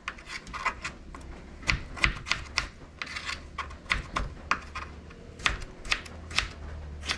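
Kitchen knife slicing raw potatoes into long strips on a chopping board: a run of sharp, irregular taps, two or three a second, as the blade cuts through and meets the board.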